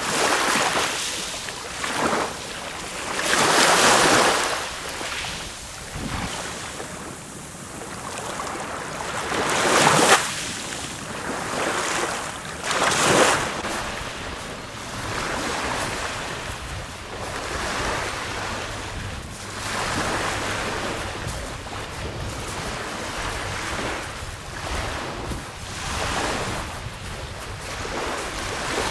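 Small waves breaking and washing up a sandy shore. The sound swells and ebbs every few seconds, with a few louder washes among them.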